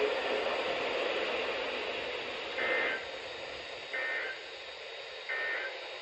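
Radio hiss and static with three short bursts of high data tones about a second and a half apart: the SAME header of an Emergency Alert System activation coming through the radio.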